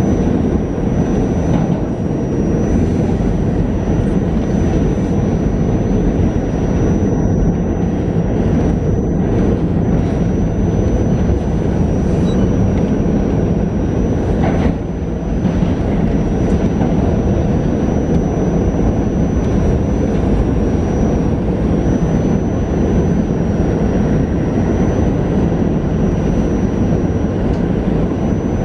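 R46 subway car running at speed through a tunnel, heard from inside the car: a steady loud rumble of wheels on rail with a thin high steady tone above it, and one short knock about halfway through.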